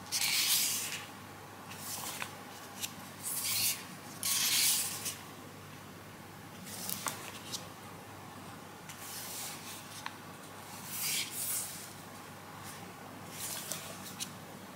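Paper pages of a sticker-decorated notebook turned and smoothed flat by hand: a series of short rustles and swishes every second or two, with a couple of small ticks.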